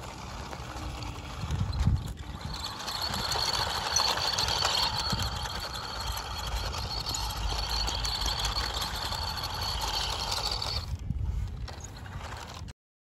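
Toy RC monster truck's small electric motor and gearbox whining steadily as it drives over dirt, over a low rumble. The whine fades out about eleven seconds in, and the sound cuts off near the end.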